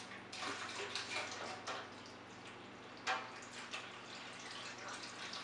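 Lager running from a siphon tube into a keg, splashing and trickling as it is racked from a glass carboy, with irregular louder splashes or clinks, the loudest about three seconds in.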